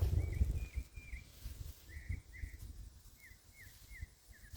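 A small songbird calling repeatedly with short high chirps, each sliding down in pitch, coming quicker, about three a second, in the second half. A low rumble of noise in the first second is the loudest sound.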